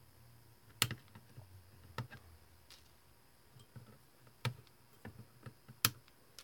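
Flush cutters snipping the excess wire leads of soldered resistors on a circuit board, a sharp click with each cut: four loud snips spaced a second or so apart, with fainter clicks between.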